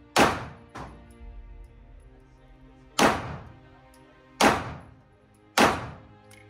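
Four handgun shots in an indoor range lane, each a sharp bang with a short echo: one near the start, then three more from about three seconds in, roughly a second apart. Quiet background music plays underneath.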